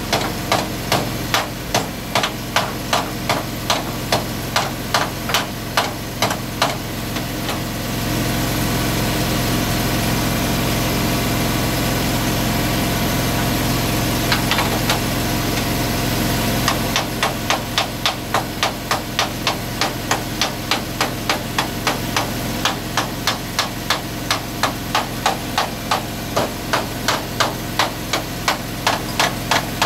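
An engine running steadily under regular metallic knocks, about five every two seconds. About eight seconds in the knocks stop and a louder steady noise holds for about nine seconds, then the knocking resumes.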